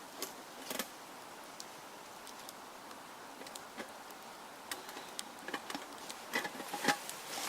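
Scattered small clicks and rustles of someone moving on the forest floor, sparse at first, then quiet, then busier and louder near the end, over a faint steady woodland hiss.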